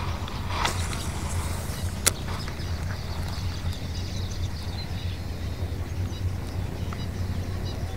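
A baitcasting rod being cast: a brief swish about half a second in, then a single sharp click about two seconds in, over a steady low rumble.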